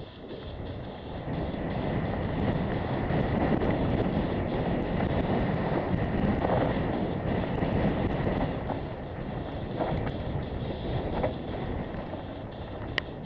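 Wind buffeting the microphone as a mountain bike rolls down a loose dirt singletrack, with tyre noise on the gravel and small scattered rattles and clicks from the bike. The rush grows louder a couple of seconds in as speed picks up and eases in the last few seconds; a single sharp click comes near the end.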